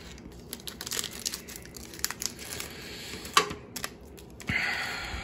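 Foil wrapper of an NBA Hoops trading-card pack crinkling as it is handled and opened: scattered small crackles, a sharper crackle about three and a half seconds in, and a longer steady rustle near the end.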